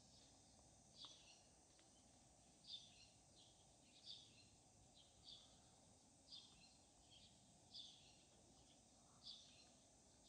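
Faint, short bird chirps repeating about every second or so, over a low steady outdoor hiss.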